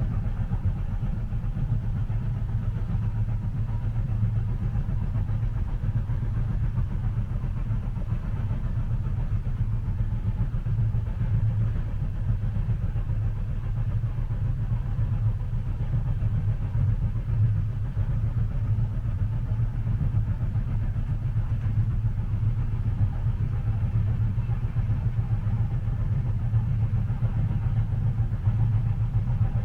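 Moving train heard from inside a passenger carriage: a steady, deep rumble of the running gear on the rails, with no distinct clicks or changes.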